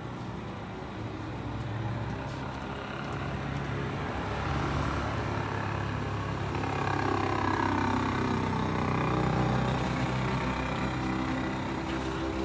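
Street traffic: a motor vehicle's engine running and passing close, growing louder through the middle and easing off near the end.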